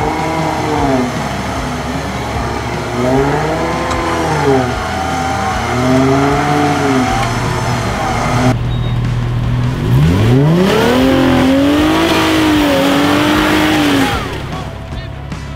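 Jeep Wrangler engines revving up and down in repeated short blips while climbing a rutted dirt track under load. About two-thirds of the way through an engine revs up sharply and holds high revs for a few seconds.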